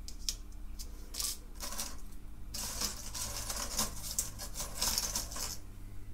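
Small electronic components with wire leads (LEDs, capacitors, little chips) clicking and rattling against each other and the tabletop as hands sort through a loose pile. A few separate clicks come first, then a dense run of rattling in the middle that stops about a second before the end.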